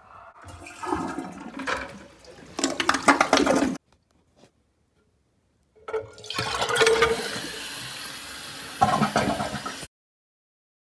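Toilet flushing, water rushing through a tank fitted with a new flapper, heard in two separate stretches of a few seconds each that cut off suddenly.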